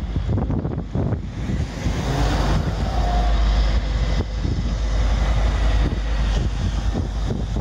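Wind buffeting the microphone as a steady low rumble, with road traffic noise underneath.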